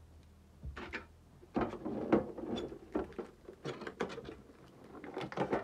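Foil Pokémon booster-pack wrappers crinkling and rustling as they are picked up, handled and laid down, in a run of irregular short rustles and light taps.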